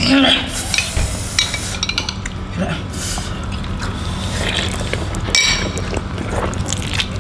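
Eating sounds from a bowl of bakso soup: a metal spoon clinking and scraping against a ceramic bowl, with slurps of broth and noodles, the loudest about a quarter second in and again about five seconds in.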